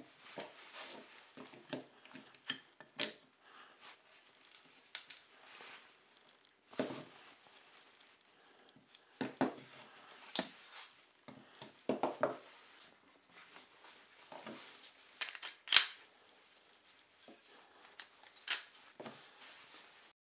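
Homemade wooden bar clamp being handled and tightened on a pine workpiece: scattered knocks and clicks of wood on wood, and of the sliding jaw on its metal bar, with one sharp knock, the loudest, about three quarters of the way through.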